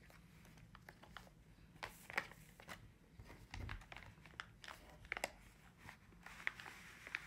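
A clear plastic zip-lock bag crinkling as hands handle it: scattered sharp crackles and clicks, with a soft low thump about three and a half seconds in.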